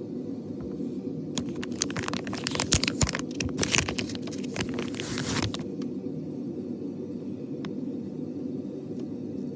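Crinkling and rustling of a wrapper or packet handled close to the microphone, a dense run of quick crackles that starts about a second in and stops after about four seconds, over a steady low hum.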